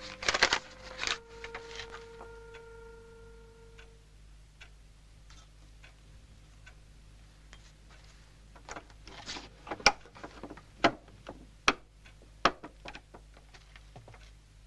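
Held musical notes with a few loud strikes die away about four seconds in. Faint scattered ticks follow, then several sharp knocks and clicks, with a brief hiss about nine seconds in.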